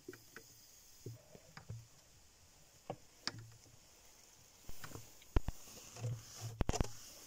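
Handling noises: a plastic lid carrying electrodes is lifted and shifted on the rim of a glass electrolysis jar, giving scattered light clicks and knocks, with a quick cluster of sharper knocks near the end.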